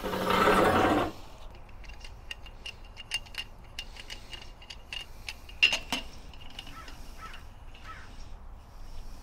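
A metal-legged patio chair is dragged across a concrete patio for about a second. Then come light metallic clicks from handling an aluminium antenna clamp mount, with one louder clunk about five and a half seconds in as it is set against the chair's arm.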